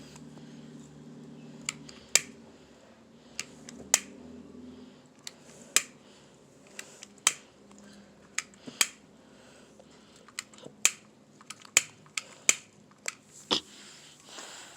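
A lighter being clicked over and over: about twenty sharp, irregular clicks, one or two a second. A low hum underneath stops about a third of the way in.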